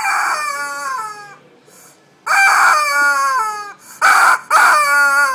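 Yellow rubber squeeze chicken squawking four times as it is squeezed, each squawk falling in pitch; the first two are long, the last two shorter and close together.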